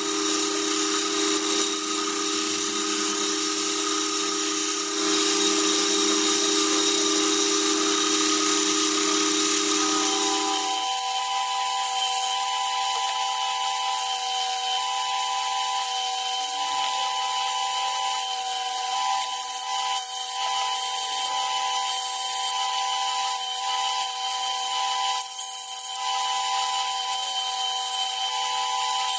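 A power tool running steadily with a hiss and a whine; its tone shifts higher about eleven seconds in.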